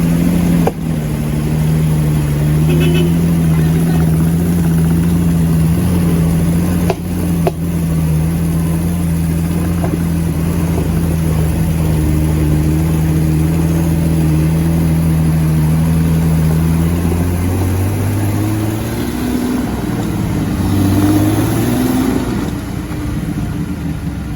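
Jeep Rubicon engine running hard at steady revs under load on a muddy climb, the revs dropping and wavering near the end. Two brief sharp knocks early on and about seven seconds in.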